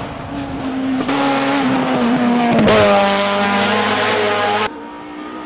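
Hillclimb competition car's engine at high revs as it drives past close by. Its pitch dips and it is loudest about halfway through. Near the end the sound cuts off abruptly to a quieter, more distant scene.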